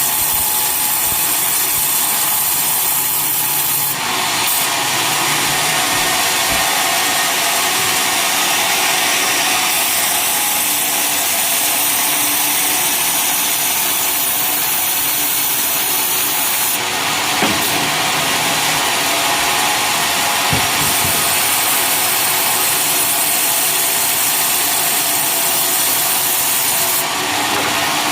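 Homemade sawmill blade sawing through a coconut palm log: a loud, steady sawing noise that shifts in tone a few times as the cut goes on.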